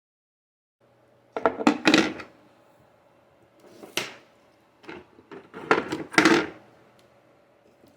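Objects being handled, with a series of sharp knocks and scraping rustles in three bursts after a second of silence, the loudest just past the middle.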